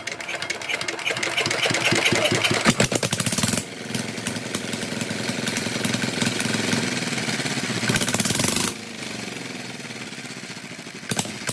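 Rebuilt Changchai single-cylinder diesel engine starting and running, its rapid firing strokes picking up speed over the first second or two and then settling into a steady run. The sound drops quieter about nine seconds in.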